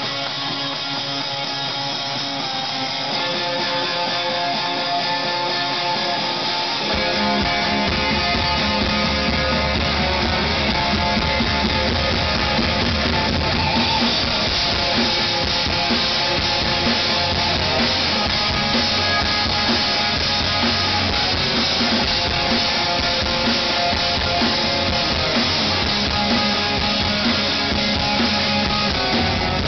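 Live rock band playing the opening of a song: electric guitar at first, then bass and drum kit come in about seven seconds in and the full band plays on.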